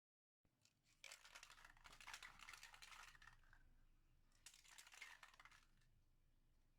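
Near silence, with faint rustling handling noise twice.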